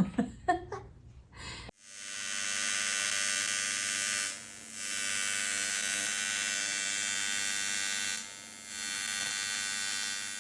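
A small electric power tool running with a steady high-pitched buzz, dropping off briefly twice.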